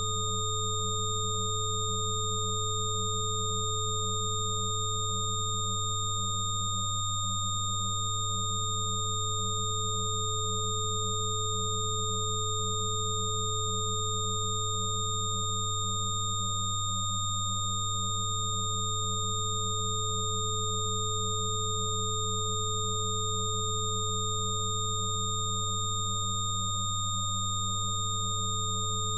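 Electronic 'frequency therapy' sound made of steady pure tones layered at several pitches: a strong low hum with a wavering tone just above it, a middle tone, and thin high whistling tones. The middle tone fades out and back about every ten seconds.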